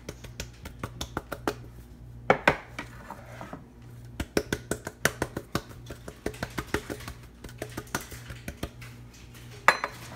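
Metal muffin tin of filled mini pie crusts tapped over and over on a countertop: a run of light knocks, several a second, pausing briefly about three and a half seconds in, with a few louder knocks near the end.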